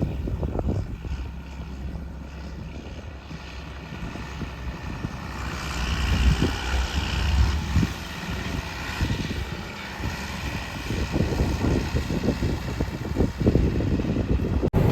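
Combine harvester running while cutting wheat: a steady low engine rumble with a hissing swell of noise a few seconds in.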